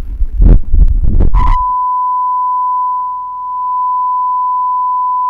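A second or so of loud, noisy commotion cuts off abruptly. A steady 1 kHz test tone follows, the bars-and-tone sound of a broadcast standby card.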